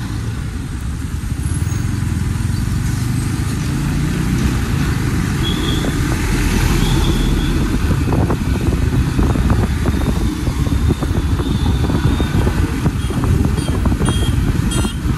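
Yamaha MT-15 motorcycle being ridden through traffic: its engine running steadily under a continuous low rumble of road and wind noise.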